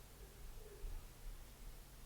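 Faint room tone with a steady low rumble and a soft low bump a little under a second in.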